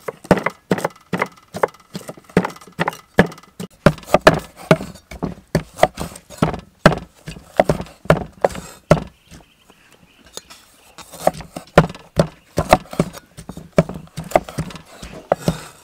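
Cleaver chopping limes on a wooden chopping block: quick repeated knocks of the blade on the wood, about three or four a second, with a pause about nine seconds in before the chopping picks up again.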